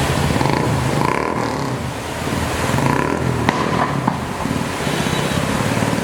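Heavy rain pouring down, a steady loud hiss, with a low rumble underneath.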